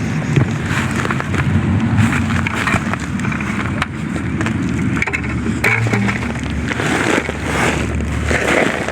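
Potting soil rustling and scraping against a 5-gallon plastic bucket as potatoes are dug out by hand, a steady crackly noise with small crunches throughout.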